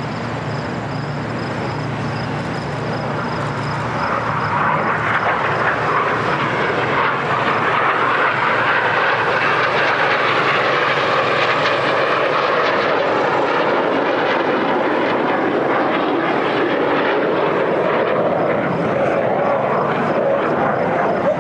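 Jet noise from a BAE Hawk T1 flying past, its single Adour turbofan giving a steady rushing sound that grows louder about four seconds in. A whine in the sound slowly falls in pitch as the jet passes.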